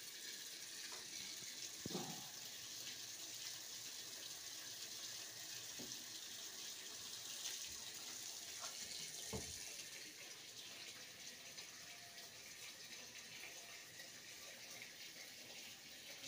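Water running steadily from a tap as a constant hiss, with a few light knocks, the loudest about two seconds in.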